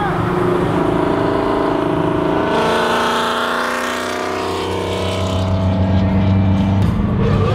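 Cars accelerating side by side on a freeway, heard from inside one of them: engine and road noise, with the engine note climbing in pitch about three seconds in, then holding steady.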